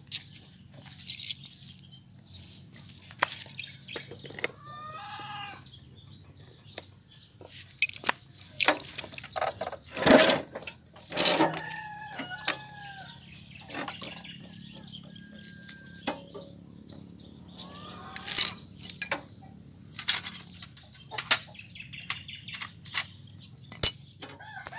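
Scattered metal clanks and knocks from hands handling the water hopper and tank of a Kubota ER65 diesel engine, the loudest about ten seconds in. A rooster crows and chickens cluck several times over them.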